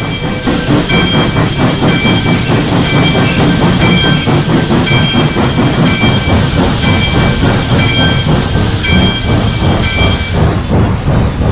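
Steam locomotive running: fast, regular chuffing over a low rumble, with steady rain throughout. A high ringing comes and goes several times.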